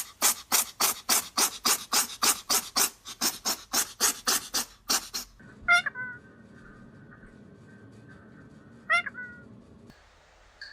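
A fast, even rasping beat, about three or four strokes a second, for the first five seconds, then a cat meows twice, short calls about three seconds apart.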